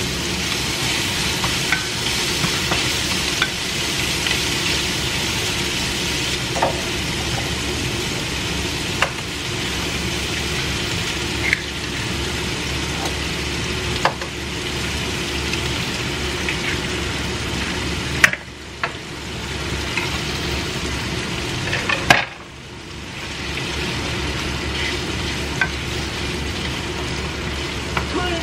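Food sizzling in a hot frying pan on a stovetop and being stirred with a wooden spatula, with a sharp click every few seconds as the spatula knocks the pan. The sizzle drops suddenly twice in the second half, then builds back up.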